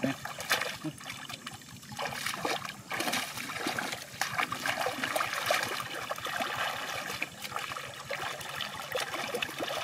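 Hands and legs sloshing and splashing through shallow muddy water while groping for fish by hand, with irregular splashes and trickling throughout.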